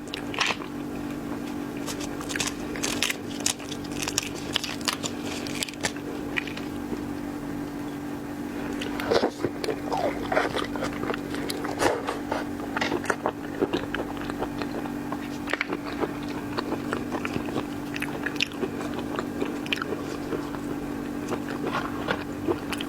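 A person eating seafood close to the microphone, with wet biting, crunching and chewing and many scattered sharp clicks and crackles, over a steady low hum.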